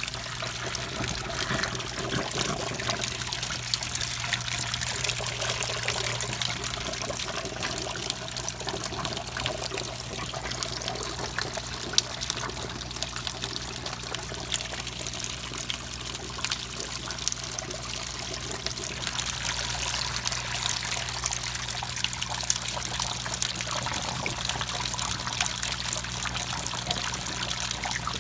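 Top-load washer draining: its drain hose spraying and pouring soapy water into a utility sink, steady throughout over a low, even hum from the drain pump.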